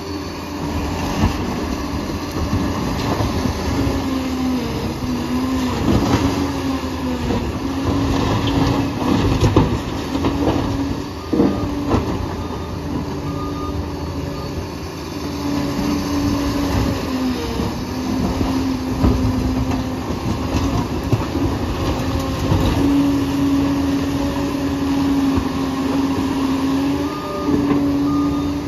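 Liebherr PR 746 crawler bulldozer working: a steady machine din with a whine that comes and goes, dipping in pitch now and then, and a few sharp knocks.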